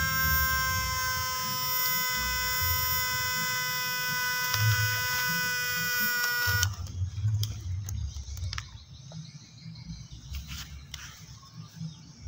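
Homemade transistor electric fish shocker buzzing with a steady high-pitched tone while switched on, then cutting off suddenly about six and a half seconds in. After it, only low handling rumble and a few light clicks.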